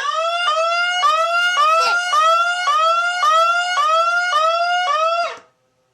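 Electronic alarm siren sounding a loud, repeating rising sweep, about two sweeps a second. It cuts off suddenly near the end.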